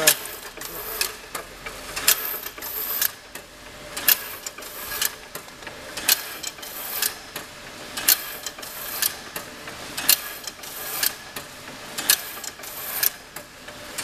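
Crimp wire mesh weaving machine running, its loom mechanism clacking in a steady rhythm about once a second over a continuous mechanical whir.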